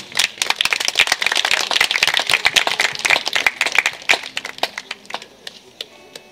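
Audience applauding: dense clapping that thins out to a few scattered claps after about four and a half seconds.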